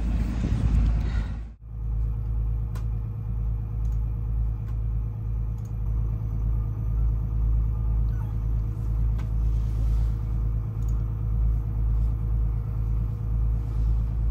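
Steady low machinery drone inside a trawler yacht's pilot house, with a few faint light clicks over it. It follows a brief burst of outdoor noise that cuts off suddenly about a second and a half in.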